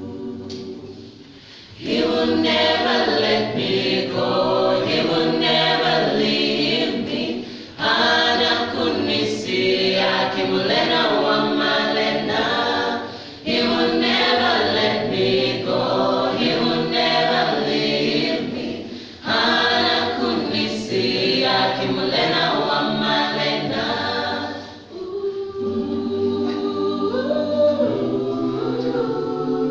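Mixed choir of men and women singing a gospel song, in phrases of about six seconds that each come in loud after a short breath.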